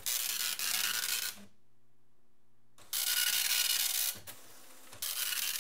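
Citizen 120D+ 9-pin dot matrix printer printing lines of text: the print head rasps across the paper in bursts of a little over a second, three in all. Between the bursts come pauses with only a faint steady hum, the longest after the first pass.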